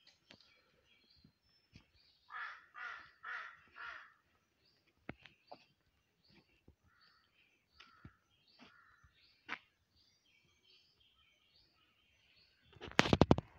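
A crow cawing four times in quick succession about two seconds in, followed by scattered faint clicks and chirps. A brief loud thump near the end.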